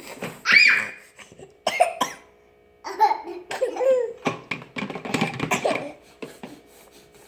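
A person's voice making short non-speech noises, coughs and laugh-like bursts, some high and squealing, with a brief pause about two seconds in.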